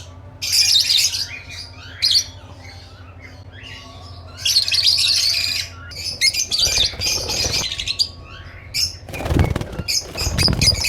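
Small aviary parrots chirping and squawking in many short, overlapping calls over a steady low hum, with two longer rustling noises in the second half.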